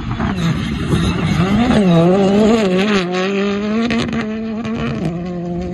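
Rally car's engine at high revs as the car slides through a dirt turn, its pitch wavering up and down, then holding steadier and stepping down slightly about five seconds in.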